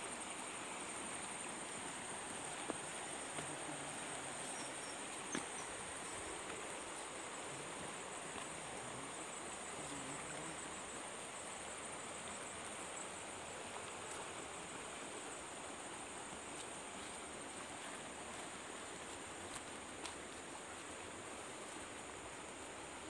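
Steady high-pitched drone of insects over a faint, even hiss of outdoor air. A pulsing chirp joins in the middle, and there are a couple of soft clicks.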